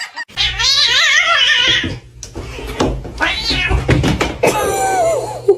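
A cat yowling loudly: three long, wavering calls one after another.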